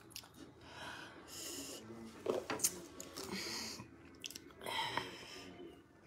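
Mouth sounds of a person eating fisherman soup: chewing and a few sharp lip smacks, with short breathy breaths in between.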